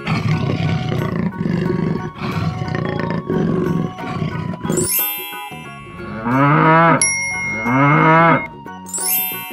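A big cat growling in rough pulses for about five seconds, then a quick rising bell chime, then a cow mooing twice, over light background music.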